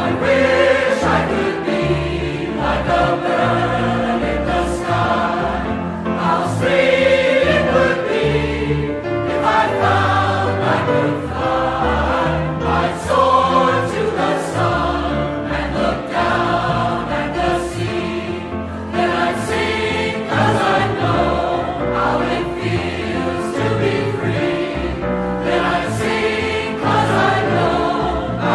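Choir singing with musical accompaniment.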